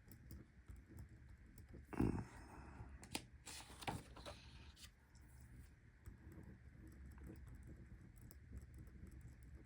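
Quiet handling of paper planner inserts on a desk: scattered light clicks and taps, with a short paper rustle about two seconds in and a longer one a second later.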